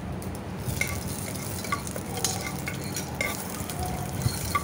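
Steel spoon stirring whole spices frying in ghee in an aluminium pressure cooker: a light sizzle with repeated short clinks and scrapes of the spoon against the pot.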